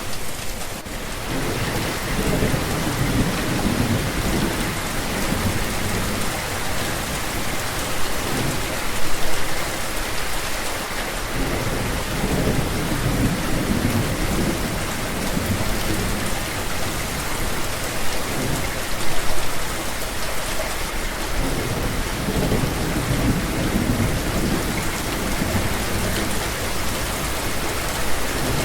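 Steady rain falling, with low rumbles of thunder rolling in and out several times.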